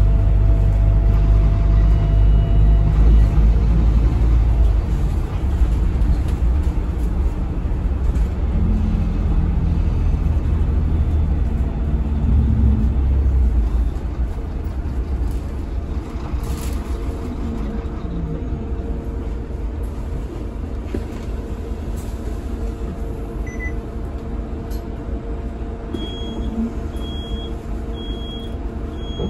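Inside a Scania K320HB bus under way: the Scania DC9 five-cylinder diesel and road noise make a loud low rumble for the first half, easing off about halfway through. Near the end, four short high beeps sound about a second apart.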